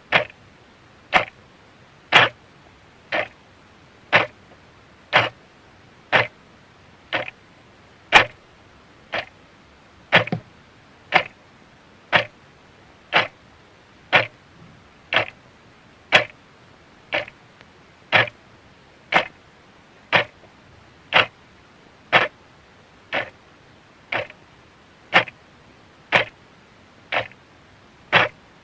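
A clock ticking steadily, one tick a second, the ticks alternating slightly in strength like a tick-tock.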